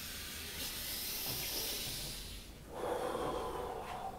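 A man breathing as hard as he can in a loud, forced breathing exercise: one long hissing breath, then a shorter, lower and louder breath about three seconds in. The breath noise is strong enough that he finds it annoying.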